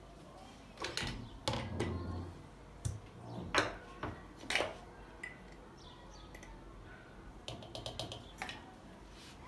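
Kitchen handling sounds: a series of separate knocks and clinks of objects being set down and moved, then a quick run of small ticks near the end.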